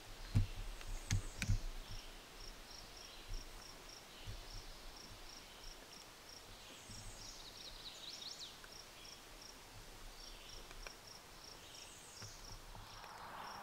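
Insect chirping steadily in a regular high-pitched pulse, about three a second, with a few short bird chirps around the middle and again near the end. A few low thumps in the first two seconds are the loudest sounds.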